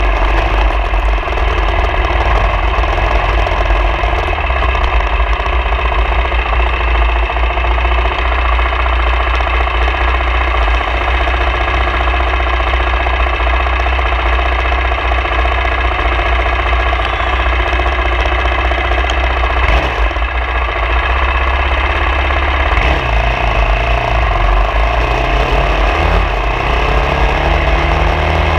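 Engine running steadily while the vehicle is ridden off-road, with a strong deep rumble underneath. In the last few seconds the engine pitch rises and falls several times.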